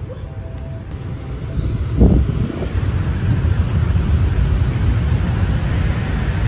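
Road traffic noise from passing vehicles, a steady low rumble that grows louder about two seconds in.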